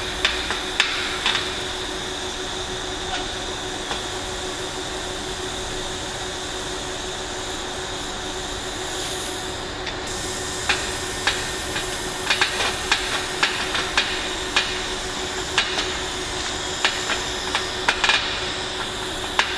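TIG welding arc on thin-wall stainless steel pipe, a steady hiss and hum, with sharp ticks a few times near the start and about twice a second through the second half.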